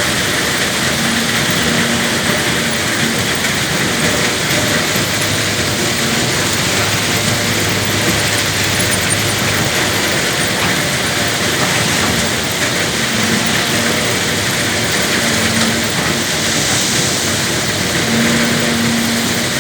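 Diesel engine of a Caterpillar 320 GC excavator running steadily, with mechanical noise, while the machine loads a dump truck.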